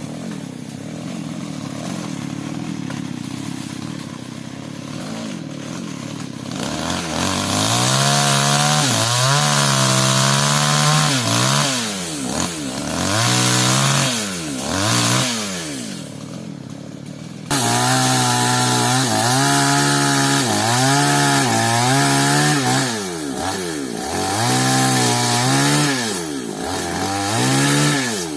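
New West two-stroke chainsaw running steadily at first, then revved hard over and over from about seven seconds in, its pitch rising and falling as it cuts into sengon wood.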